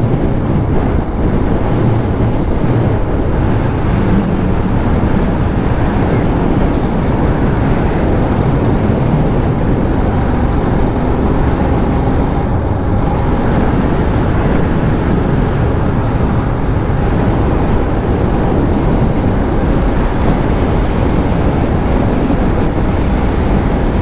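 Steady wind rush on a motorcycle rider's helmet microphone at road speed, over the bike's engine and its tyres on a wet road.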